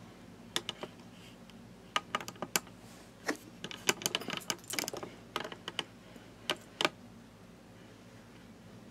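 A scattered, irregular run of light clicks and taps, thickest in the middle few seconds, as a collared dog moves in against a leather armchair.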